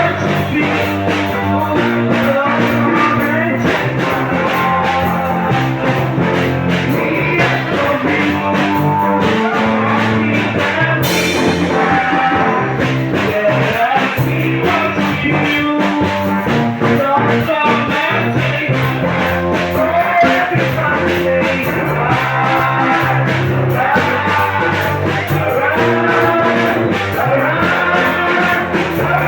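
Praise and worship music: a band with guitar and bass playing steadily under singing voices.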